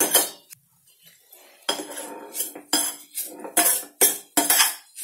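Spoon scraping and knocking against a stainless steel pan, stirring and chopping up a sautéing tomato and paneer mixture. After a short lull near the start, the strokes come in a quick run, two or three a second.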